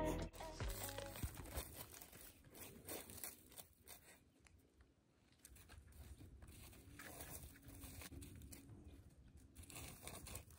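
A dog digging with its front paws in dry dirt and pine needles: faint scratching and scraping in short irregular spells, with a pause of about a second and a half near the middle.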